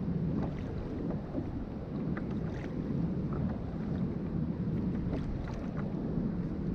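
Wind rumbling over the microphone and choppy sea water lapping against a kayak, with scattered short splashes.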